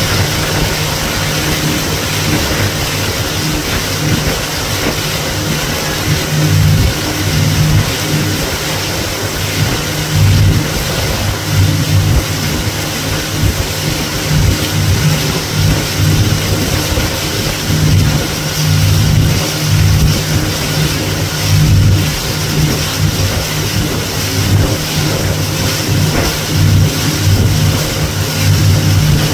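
Motorboat engine running steadily under way, with a rush of wind and water over it.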